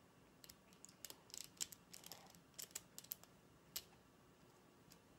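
Faint, irregular plastic clicks of a 1x3x3 puzzle cube being twisted by hand, stopping about a second before the end.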